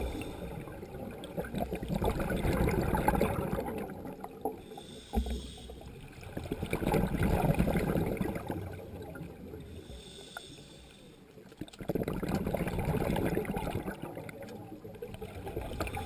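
Scuba diver breathing through a regulator underwater: three long bursts of rumbling exhaled bubbles, each followed by a short hiss of the regulator on the inhale.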